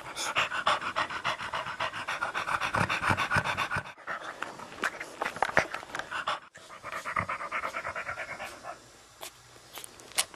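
Mother French bulldog panting quickly in an even rhythm, close up, as she licks her newborn puppy clean. It breaks off abruptly about four seconds in, resumes, and dies down near the end.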